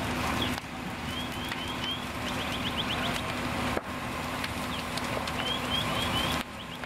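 A fire engine runs with a steady hum while a fully involved house fire burns with a dense rushing crackle. Short, high rising chirps repeat in quick runs of three or four. The sound shifts abruptly about half a second in, near four seconds, and near the end.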